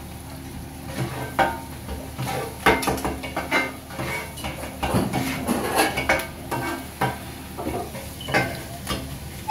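Two metal spatulas chopping and scraping kottu roti on a flat griddle: irregular clattering strikes of metal on metal, starting about a second in, over a light sizzle.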